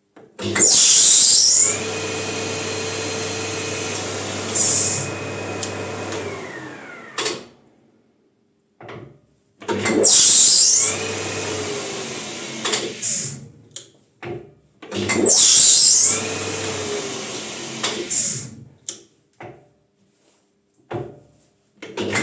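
Maximat metal lathe with a bicycle disc brake rotor fitted, started and run for a few seconds, then switched off and spinning down with its pitch falling, four times over. Each start-up opens with a loud hiss, and there are sharp clicks between the runs.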